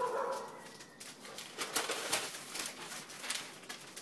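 Phone rubbing and rustling against clothing as it swings on a lanyard, a run of crackly scrapes, with a brief low call in the first second.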